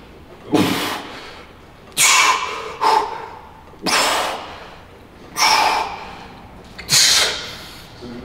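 Hard, blowing exhalations from a bodybuilder pressing on a seated chest press machine, one sharp breath out with each rep, coming about every second and a half.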